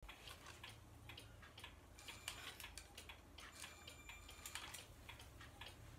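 Faint, rapid mechanical clicking, several clicks a second and not quite even, over low room hum.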